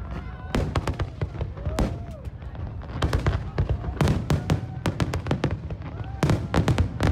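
Fireworks bursting in rapid volleys of sharp bangs and crackles, in clusters about every second or so.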